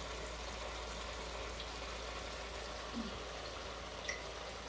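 Pot of mopani worms in onion and tomato sauce simmering with a steady low sizzle. A brief sound of a voice comes about three seconds in.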